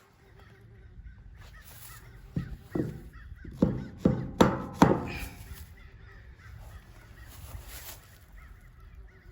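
A bird calling: a quick run of about six loud, harsh calls a few seconds in, over a steady low rumble.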